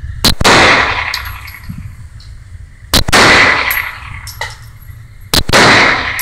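Springfield 9 mm pistol firing three single shots, about two and a half seconds apart, each one loud and followed by a long echo off the walls of an indoor range. Fainter sharp clicks sound between the shots.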